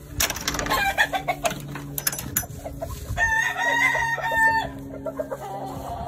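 A gamefowl rooster crows once, a single held call of about a second and a half starting around three seconds in. Before it comes a clatter of sharp knocks and scuffs, the loudest sound here.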